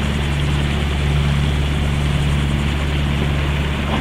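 Boat engine running steadily under way: a constant low drone with an even rush of noise over it.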